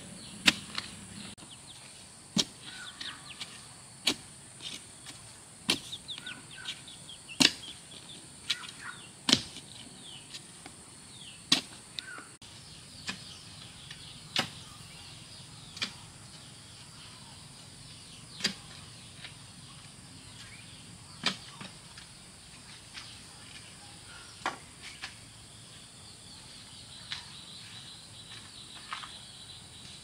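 Repeated sharp strikes from hand-tool work, one every one to three seconds and coming less often towards the end, over a steady high buzz.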